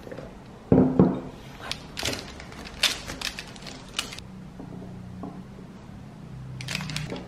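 A thump as something is set down on the table about a second in, then a metal knife and fork cutting through a toasted crumpet on baking paper, with sharp clicks and scrapes of the cutlery, more of them near the end.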